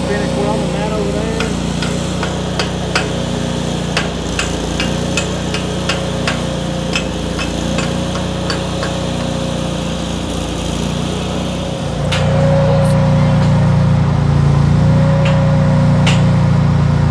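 Miller Bobcat engine-driven welder running steadily, with sharp clicks scattered over the hum during stick welding on steel pipe cattle pens. About twelve seconds in, the engine hum grows louder.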